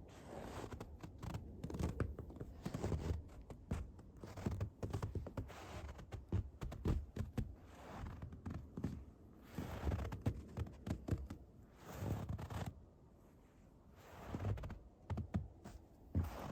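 Footsteps crunching in snow at a walking pace, each step a crackly burst with a low thud, with a short pause about thirteen seconds in.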